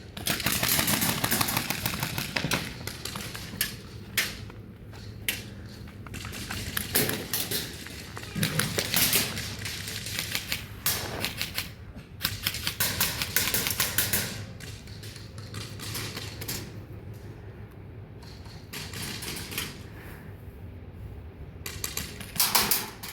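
Airsoft guns firing in rapid bursts, a fast clicking rattle of shots that stops and starts again several times.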